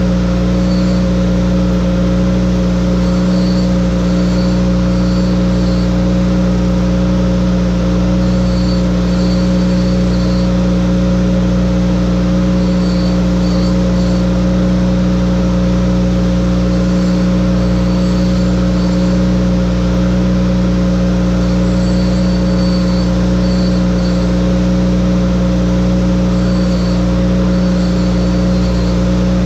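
Electric chain grinder's motor running at a steady hum as a 3/4-pitch harvester saw chain is sharpened on its grinding wheel. Short, higher-pitched grinding strokes come in small clusters every few seconds as the teeth are touched to the wheel.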